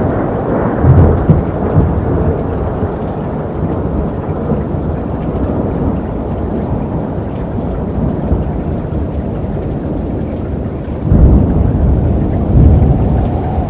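Thunderstorm sound effect: steady rain with rolling thunder, and loud low thunderclaps about a second in and again near the end.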